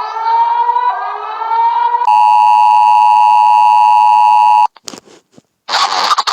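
Emergency alert broadcast alarm tones. Two rising siren-like glides come first, then a loud, steady chord of several tones that lasts about two and a half seconds and cuts off suddenly. After a few short clicks, a burst of harsh static-like noise starts near the end.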